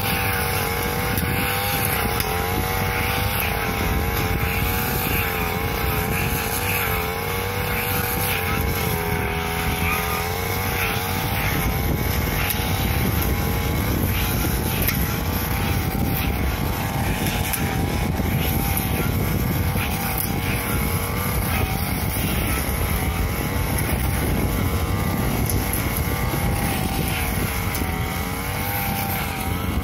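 Backpack brush cutter's small petrol engine running at working speed as its blade cuts grass, the engine note wavering slightly up and down.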